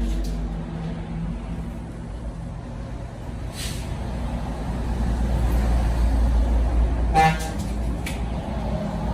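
Steady low rumble with a short vehicle horn toot about seven seconds in.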